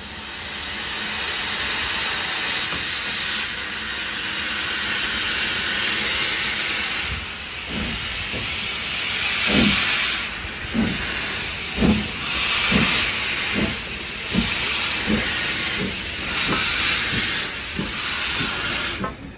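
Steam locomotive pulling away: a loud hiss of steam from the cylinders, then exhaust chuffs joining in about halfway through and coming steadily faster as it picks up speed.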